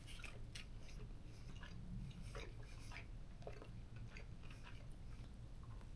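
Faint close-miked chewing and biting of a cheeseburger: soft, irregular wet mouth clicks over a steady low hum.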